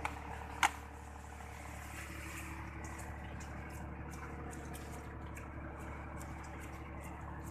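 A steady low engine hum throughout, with a single sharp knock about half a second in.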